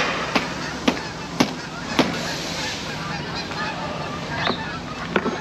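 Food packages and rubbish dropped into a metal dumpster while a cooler is cleared out: a run of sharp knocks about two a second, then a stretch of rustling.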